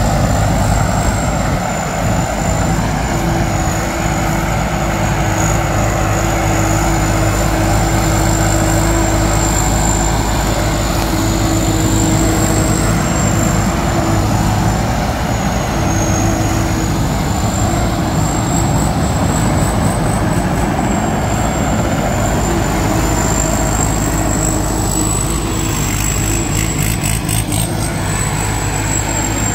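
Diesel engine of a tracked rice combine harvester running steadily as the machine drives, with a thin high whine that wavers slightly in pitch over the engine's drone.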